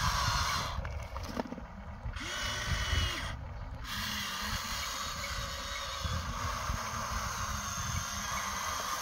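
Remote-control toy excavator's small electric motors and gearboxes whirring in a steady, drill-like whine, which stops briefly twice in the first four seconds as the machine's movements pause.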